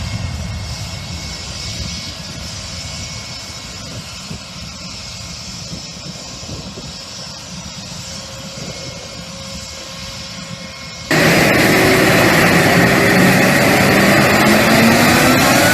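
Airplane engine noise fading away, then a sudden cut about eleven seconds in to much louder engine noise with a whine. A few seconds later the whine starts rising in pitch.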